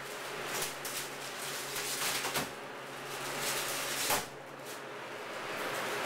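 Trays of bagged lunches being handled on a wire rack cart: light clatter and rustling with several sharp knocks, the loudest about four seconds in. A steady low hum runs underneath and stops just after that knock.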